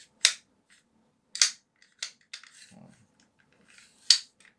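Tokyo Marui HK USP9 airsoft pistol being reassembled, its Detonator aluminium slide fitted back onto the lower frame: four sharp clicks, with faint handling noise and a soft knock between them.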